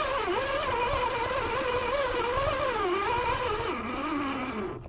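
Brushed electric motor and gears of an Axial Honcho RC rock crawler whining as it drives, heard from on board. The whine rises and falls in pitch with the throttle and stops near the end.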